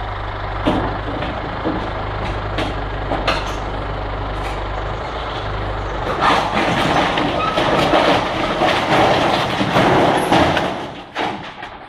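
Tractor engine running steadily with a few sharp knocks. From about six seconds in, a loud clattering crash of metal roof sheeting as the shed is pulled down and dragged to the ground, dying away near the end.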